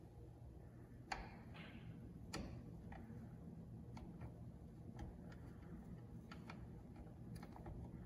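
Faint, irregular light clicks and taps over a low steady hum, with two sharper clicks about a second and two and a half seconds in.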